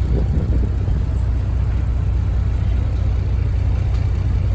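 Steady low rumble of a motor vehicle running, engine and road noise without a break.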